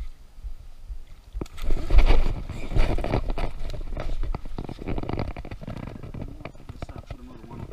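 Hooked alligator thrashing in the water, splashing and churning, starting about a second and a half in and loudest just after.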